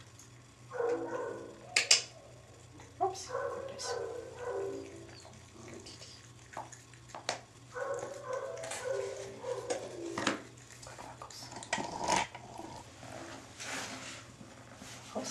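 F1 Savannah cat calling out several times in drawn-out, wavering meows, with a few sharp clicks between them.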